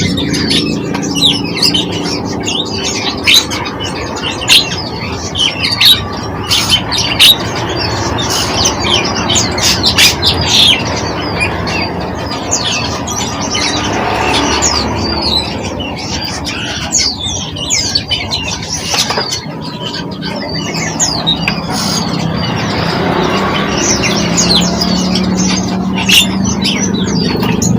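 Small birds chirping: a rapid string of short, high chirps and quick sweeping calls, some sharp and loud, over a steady low background hum.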